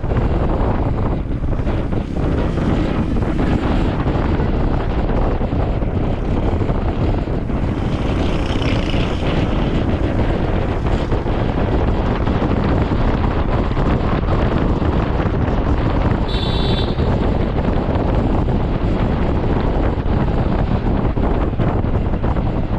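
Wind buffeting the action camera's microphone on a moving Honda ADV160 scooter, with engine and road noise underneath. A short high-pitched tone sounds about 16 seconds in.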